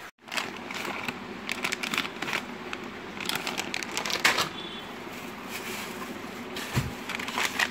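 Plastic bags crinkling and rustling in irregular bursts as hands rummage through a plastic crate of bagged items, with one dull bump near the end.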